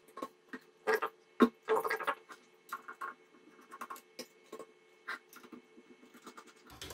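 Irregular clicks, taps and short scrapes of a small precision screwdriver turning out the screws of a Gigabyte RX570 graphics card's plastic fan shroud, with knocks from handling the card; the loudest come about a second and a half to two seconds in.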